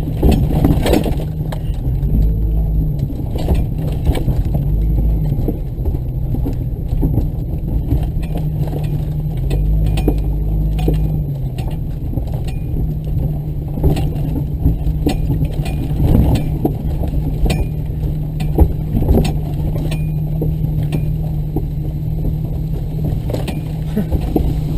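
Off-road vehicle's engine running at low speed, its pitch dipping and rising a couple of times, with frequent knocks and rattles from the body and suspension over rough ground.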